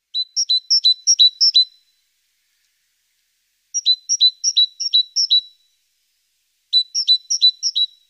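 Great tit singing its two-note 'teacher-teacher' song in three phrases, each a high note dropping to a lower one, repeated four to six times at about three pairs a second.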